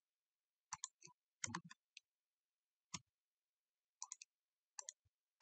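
Computer mouse clicking: a scattering of short, faint clicks, some in quick pairs, with silence between.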